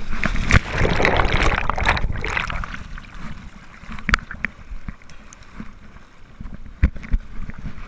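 Seawater sloshing and splashing around a camera held right at the surface, loudest in the first three seconds. A few sharp knocks come later, around four and seven seconds in.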